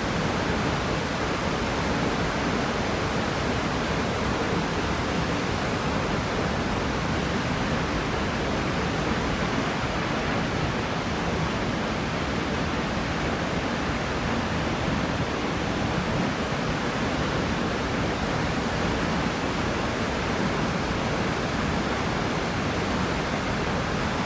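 Multnomah Falls, a tall waterfall swollen by heavy rain, roaring as a steady, unbroken rush of falling water.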